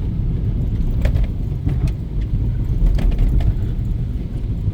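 Car in motion on a wet road: a loud, steady low rumble of road and tyre noise, with a few sharp clicks or rattles over it.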